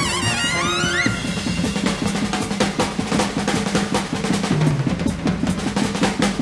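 A trumpet ends a high upward glissando about a second in. A jazz drum kit break follows: rapid snare and tom strokes with cymbal wash, with no horns playing.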